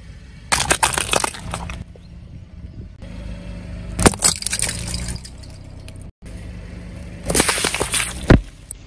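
A car tyre rolling slowly over objects and crushing them, in three short bouts: rubber toy chickens squashed with crackling, a plastic Rubik's cube cracking apart with a sharp crack, and a plastic drink bottle bursting and spraying liquid, ending in a sharp crack. The car's engine runs low underneath.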